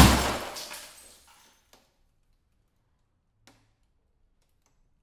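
A sledgehammer smashes into an old CRT television in one heavy crash. The breaking set's debris rattles and dies away over about a second, and a couple of small bits settle afterwards with faint ticks.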